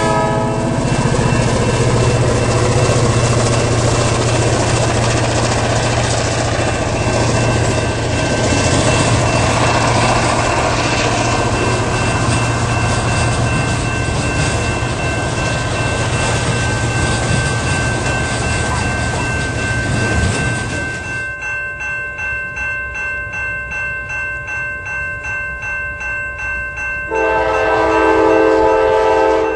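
Freight train rolling past with steady wheel and car noise for about twenty seconds. When it clears, a railroad crossing bell is left ringing about twice a second. Near the end an approaching locomotive sounds its multi-note air horn for about two seconds.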